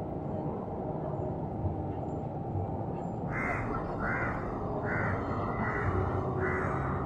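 A crow cawing five times in an even series, about one call every three-quarters of a second, starting about three seconds in, over a steady low outdoor hum.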